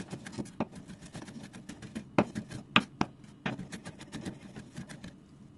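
Chef's knife chopping garlic on a wooden cutting board: rapid, uneven knocks of the blade against the board, a few louder strokes in the middle, tapering off near the end.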